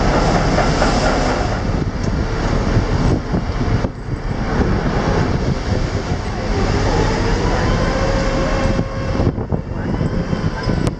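Steady loud rumbling rush of wind and churning sea water heard from a ship's deck, with the rumble of the ship's machinery underneath.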